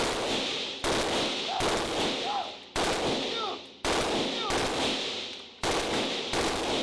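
A firearm fired as single shots, about one a second, five in all with a longer gap before the last. Each shot has a long echoing tail from the indoor range.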